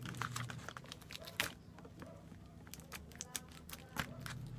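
Scissors cutting open a paper envelope: an irregular scatter of small snips and paper crackles, with a sharper snip about a second and a half in.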